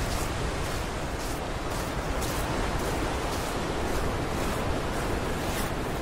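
Ocean surf breaking and washing over shoreline rocks, a steady rushing noise with no let-up.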